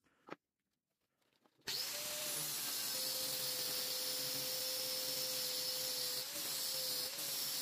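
Angle grinder starting abruptly about two seconds in and cutting through the steel of an old saw blade: a steady motor whine over a dense grinding hiss. The whine drops slightly in pitch about a second after starting and wavers briefly twice near the end as the disc cuts.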